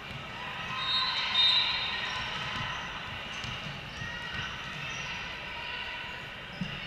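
Echoing sports-hall ambience of voices and chatter from players and spectators, with low ball thuds from the courts. A brief shrill high sound comes about a second and a half in.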